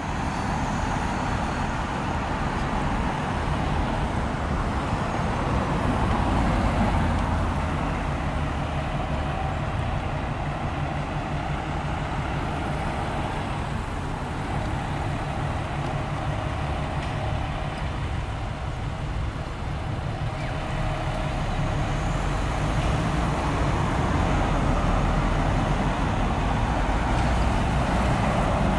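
Cars passing on the street over the steady low rumble of a fire engine's diesel engine idling.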